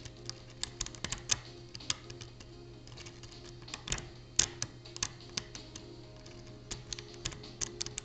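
Lock pick clicking and scraping against the pins inside a Mauer MLS euro-profile pin-tumbler cylinder as it is picked under tension: irregular small clicks, with a few sharper, louder ones about a second in and again around four to five seconds in.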